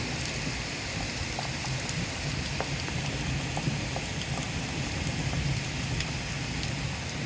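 Steady rain falling, an even hiss with scattered louder drop ticks, over a constant low rumble.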